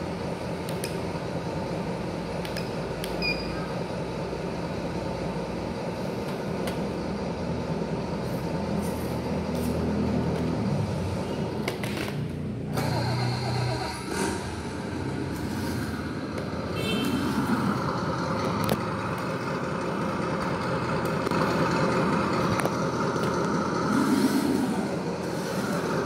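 Add-on engine sound module on an MN D90 1/16 RC crawler playing a simulated truck engine through its small onboard speaker, swelling and easing as the throttle is worked.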